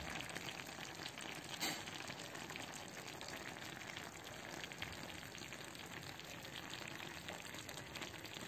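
Sauce of a beef and vegetable tajine bubbling and sizzling steadily in the clay tajine dish, a continuous soft crackle.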